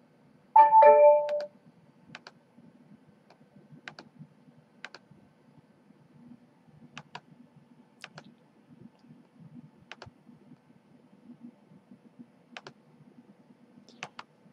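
A short computer notification chime of three falling notes about a second in, followed by single clicks every second or two over a faint low hum.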